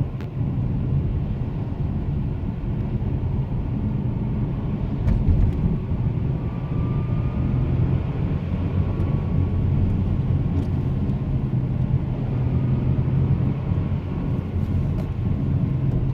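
Interior sound of a 2008 Subaru Outback 2.5 with a 5-speed manual under way: steady engine and road rumble with a faint high whine that rises slowly in pitch in the middle. The owner likens the whine to a supercharger; it comes only on the gas and is strongest in third gear.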